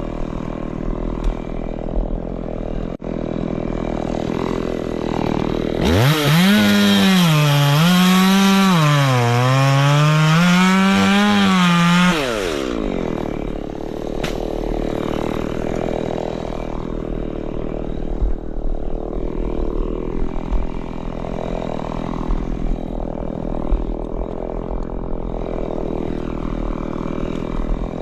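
Chainsaw idling, then throttled up for about six seconds. Its pitch sags and recovers about three times as it bogs under load in the cut, before it drops back to idle.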